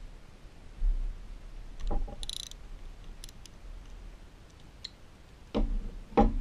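Hand tools being handled on a motorcycle's front brake caliper: a socket wrench taken off one caliper bolt and moved toward the next. There is a thud about a second in, a short clatter around two seconds, a few light clicks, and two louder knocks near the end.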